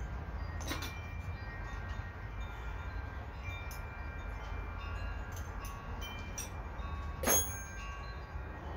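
Metal wind chimes ringing, several tones at different pitches overlapping and dying away over a low rumble, with a few light clicks and one sharp metallic clank about seven seconds in.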